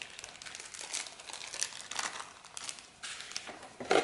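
Small plastic zip-lock bags crinkling and rustling as hands rummage through them, with a louder knock near the end.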